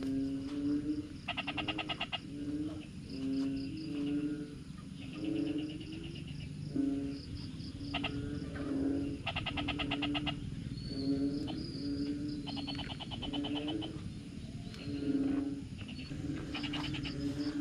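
Chorus of frogs calling: a low croak repeated about once a second, with rapid pulsed trills about a second long every three to four seconds.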